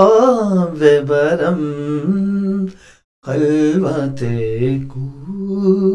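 A man singing a slow, unaccompanied Dari song, holding long notes with a wavering pitch. He breaks briefly for breath about three seconds in.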